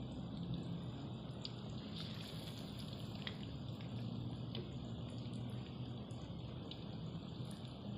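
Batter-coated fish pieces deep-frying in hot oil in a karahi: steady sizzling and bubbling with scattered small pops, over a low steady hum.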